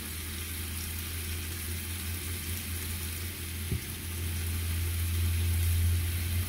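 Pork ribs sizzling in a frying pan, over a steady low hum, with one light tap about halfway through.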